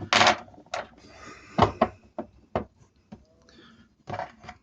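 Hand work with small metal parts: a string of sharp clicks and knocks, the loudest right at the start, as hose clamps and pipe are handled.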